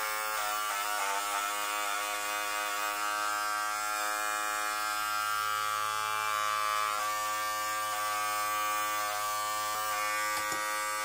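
Philips corded electric hair clipper buzzing steadily as it cuts hair around the ear, its hum wavering slightly in the first couple of seconds.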